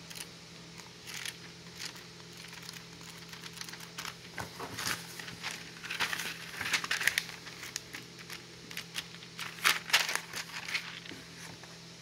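Thin glossy pages of a paper catalogue being leafed through by hand: a run of rustling, crinkling page turns, sparse at first and loudest in the second half.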